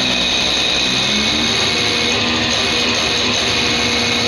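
Diesel injection pump test bench running steadily, its drive turning a rotary distributor-type injection pump during a delivery calibration run, with a constant hum and hiss.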